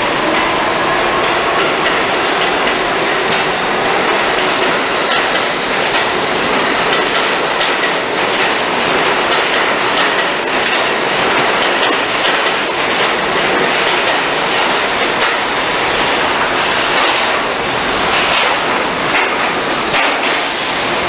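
New York City Subway train pulling out of an underground station: its motors whine upward in pitch over the first couple of seconds, then the cars run past with a steady rumble and rapid clatter of wheels over the rail joints.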